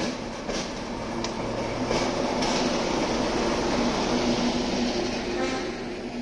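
ČSD class T478.3 'Brejlovec' diesel locomotive's V12 engine running as the locomotive rolls past close by, swelling to its loudest in the middle and fading toward the end. A few sharp clicks come in the first couple of seconds.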